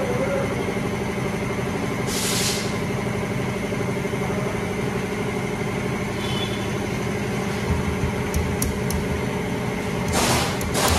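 A vehicle engine idling steadily, with two short bursts of hiss, one about two seconds in and one near the end.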